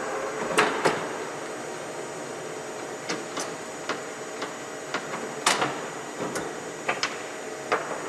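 Gear roller-chamfering machine running with a steady mechanical noise, and about a dozen sharp metallic clicks and knocks at irregular intervals as it works a helical gear.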